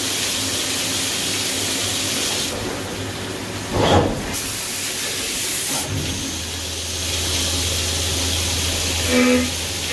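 CNC milling machine cutting soft jaws, with a steady spraying hiss over the machine's running. The hiss thins and a loud swell comes about four seconds in. About six seconds in, the hiss returns along with a low hum, and brief pitched tones sound near the end.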